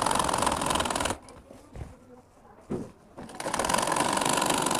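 Sewing machine running at speed, stitching a seam through cloth: a fast, even clatter of the needle mechanism. It stops about a second in, pauses with a few light clicks, and runs again from about three seconds.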